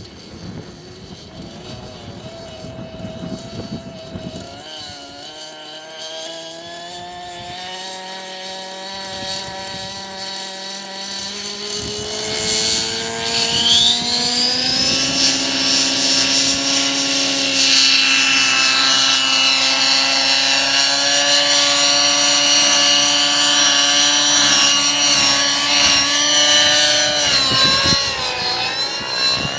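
Nitro glow engine and rotor of a T-Rex 600LE model helicopter spooling up from a low idle. The pitch climbs steadily for about ten seconds, with a high whine sweeping up, then holds at flight speed as it flies. Near the end the pitch dips briefly and comes back up.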